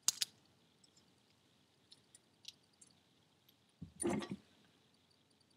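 Small metal turbo parts handled by hand, a piston-ring seal being worked onto a thrust collar: two sharp clicks at the start and a few faint ticks, then a brief scuffing handling noise about four seconds in.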